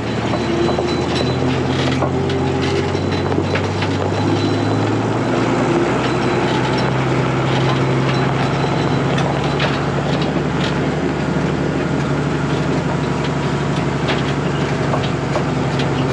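Combine harvester running steadily while combining soybeans: a constant heavy engine hum with a dense scatter of crackling and ticking from the crop going through the machine. About four and a half seconds in, a deeper part of the engine hum drops away.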